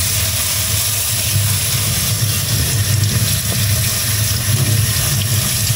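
Kitchen tap running onto a sealed roll-top dry bag held in a stainless steel sink: a steady rush of splashing water with a low rumble.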